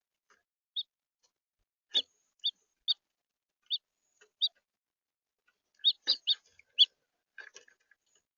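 House finches giving short, sharp chirp calls: single high notes spaced irregularly, with a quick run of several together about six seconds in and softer ones after.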